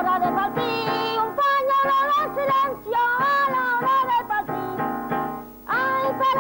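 A woman singing long, wavering held notes over guitar chords, with a short break before a new phrase about five and a half seconds in.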